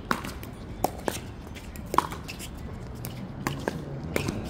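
Pickleball rally: paddles striking the hollow plastic ball, a string of sharp pocks at uneven intervals, the loudest about two seconds in.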